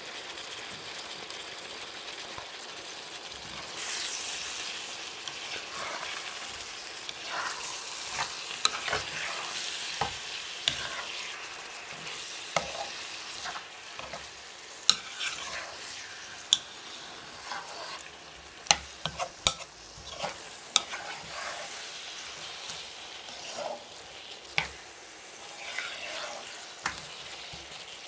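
Tagliatelle, chicken and vegetables sizzling in a wok while being stirred and tossed with a plastic spatula, a steady frying hiss that grows louder about four seconds in. Irregular sharp taps and scrapes of the spatula against the pan.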